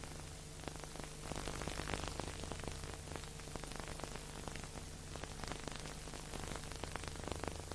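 Steady crackling hiss with a faint low hum underneath: the surface noise of an old recording or film soundtrack.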